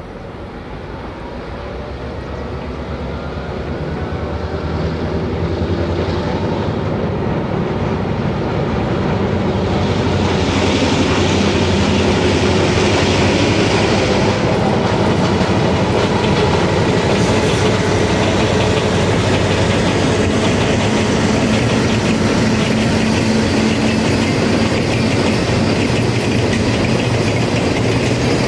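EMD GP7 locomotive with its non-turbocharged EMD 567 diesel engine working as it hauls a freight train, growing louder over the first ten seconds as it approaches and then holding steady, with the clickety-clack of wheels on the track.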